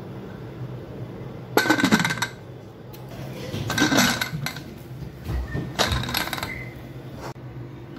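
Aluminium pressure cooker lid clanking against the pot as it is put on and closed: three bursts of metallic clatter a couple of seconds apart, each with a short ring, over a steady low hum.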